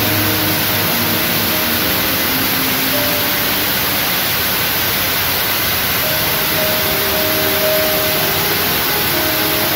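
Background music with faint sustained notes under a loud, steady hiss.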